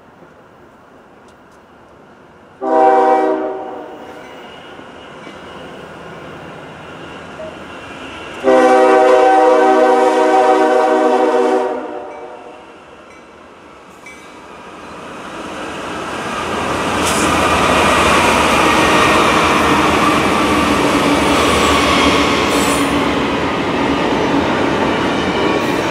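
Diesel freight locomotive's air horn sounding a short blast, then a long blast of about three and a half seconds, several notes at once. A double-stack container train then rolls past, its wheels rumbling and clattering on the rails, building up to a loud steady run.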